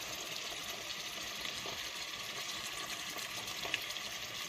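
Chopped vegetables sizzling in oil and butter in a stainless steel pot: a steady hiss with faint crackles as they cook down and release their water.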